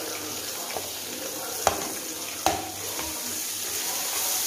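Ginger-garlic paste frying in hot oil in a kadai with a steady sizzle while it is stirred, with two sharp knocks a little under a second apart near the middle.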